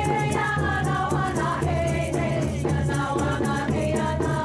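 Women's voices singing a slow chant together over a steady low drone, with a fast, even beat of light clicks.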